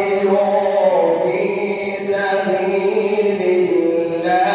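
A man reciting the Quran in melodic tajweed style, holding long drawn-out notes that slide and ornament between pitches.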